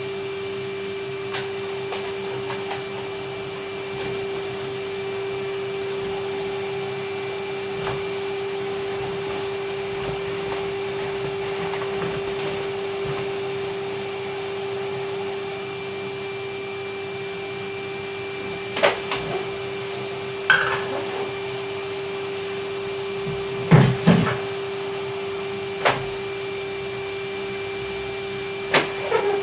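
Vacuum cleaner running steadily with a constant hum. In the second half several sharp knocks and clatters break in, the loudest two-thirds of the way through.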